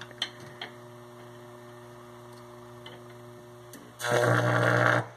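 Microwave oven transformers humming steadily under power, then about four seconds in a loud harsh electrical buzz for about a second that cuts off suddenly, as roughly 2,000 volts hit an old 330-volt electrolytic capacitor; the experimenters wonder whether the capacitor is simply shorted.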